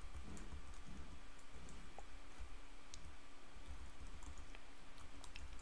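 Faint, irregular clicking of computer keyboard keys as an email address is typed, over a low steady hum.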